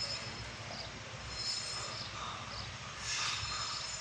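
Boom lift running as it raises its work basket: a steady low engine rumble with intermittent high-pitched squealing, a little louder about three seconds in.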